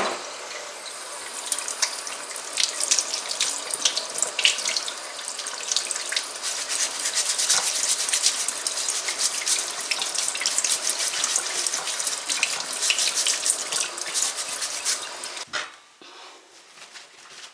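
Kitchen sink tap running, water splashing irregularly as raw chicken pieces are rinsed under it; the flow stops about a second and a half before the end.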